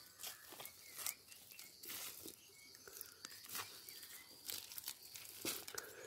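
Hands working dry, crumbly soil and dead leaves: quiet, irregular crunching and rustling.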